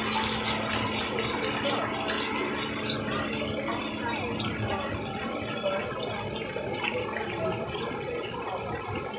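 Splash pad ambience: children shouting and chattering at play amid running, spraying water. A steady low hum runs under it for the first three or four seconds, then stops.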